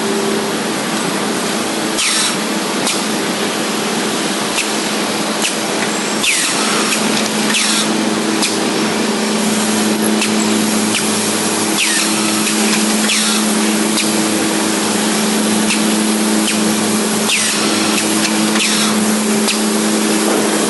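Automatic angle drilling machine running: a steady motor hum under a constant hiss, with a short click or falling squeal every few seconds as it works.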